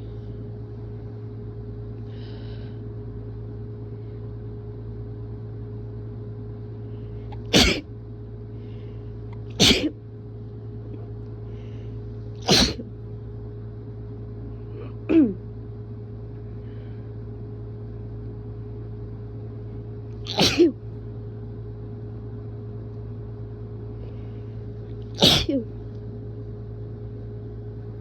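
A person sneezing hard six times, wet, abrupt sneezes a few seconds apart, over a steady low background hum.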